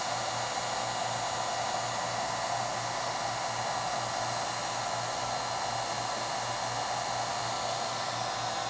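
Electric heat gun blowing steadily, shrinking the heat-shrink sleeve of a crimped push-on wire connector so its adhesive seals around the wire.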